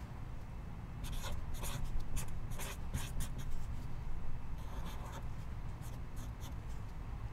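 A run of quick, scratchy strokes, like a pen or something rubbing across paper or card, in two bursts of several strokes each, over a low steady hum.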